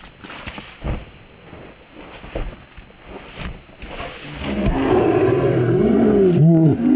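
A man's voice making animal noises: a long, loud call begins about four seconds in, then breaks into short rising-and-falling calls. Before it, footsteps and scuffing in grass.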